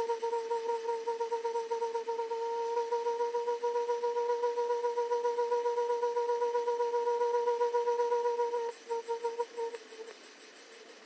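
Water tap with air in the line, giving a steady humming tone with a rapid flutter. Near the end it breaks into a short stutter and stops.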